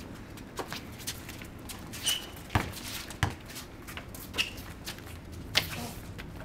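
A basketball being dribbled on concrete: a few irregular sharp bounces, two close together about halfway through and a loud knock near the end, with two brief high squeaks in between.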